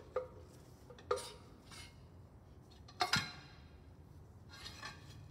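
Metal parts of a Cessna 150 nose gear oleo strut clinking and knocking as they are pushed out of the strut tube with a wooden broom handle: a few separate knocks with a short metallic ring, the loudest a double knock about three seconds in.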